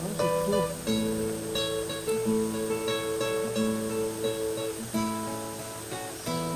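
Background music: acoustic guitar playing plucked and strummed notes at a steady pace.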